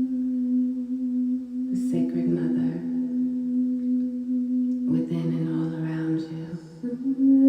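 Sustained sound-healing drone: a steady low tone with overtones. New layered tones join about two and five seconds in, and the pitch steps up slightly near the end.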